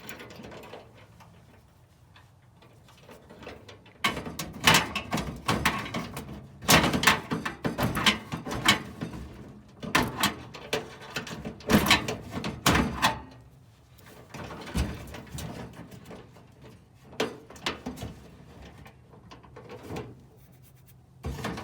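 Irregular clicks, knocks and scrapes of hands working lock parts into a truck toolbox. They come thick and fast for several seconds from about four seconds in, then turn sparse.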